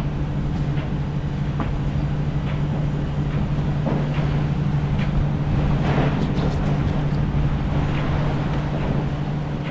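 Truck driving at a steady speed, heard from inside the cab: a constant engine drone with road noise and a few light rattles.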